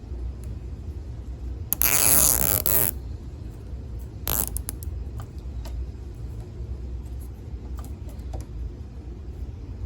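A plastic zip tie ratcheting as it is pulled tight for about a second, then a shorter rasp and a few light clicks, over a steady low rumble.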